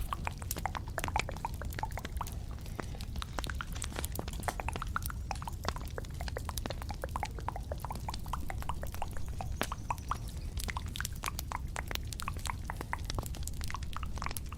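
Close-miked ASMR trigger sounds: rapid, irregular small clicks and crackles over a steady low hum.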